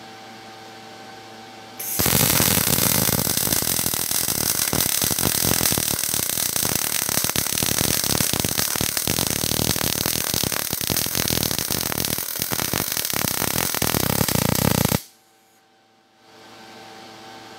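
MIG/MAG welding arc laying a horizontal (2F) fillet weld on 1/8-inch plate at about 19.5 V and 135 A, a fast steady crackle. The arc strikes about two seconds in and cuts off suddenly near the end; before and after, a steady low hum.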